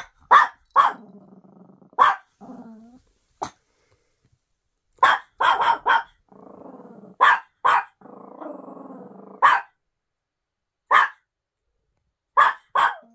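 A tiny Chihuahua-type puppy guarding: about fifteen sharp, high barks, some single and some in quick runs of two to four, with low growls between them.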